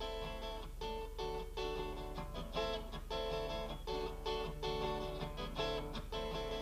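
Acoustic guitar strummed in a steady rhythm of chords, over a constant low hum.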